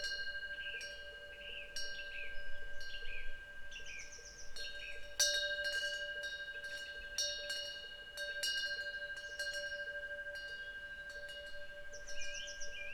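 Korean temple wind bell (pungyeong) ringing in the wind, its clapper striking irregularly, often several times a second, and each strike leaving a sustained metallic ring. Small birds chirp and warble in the background.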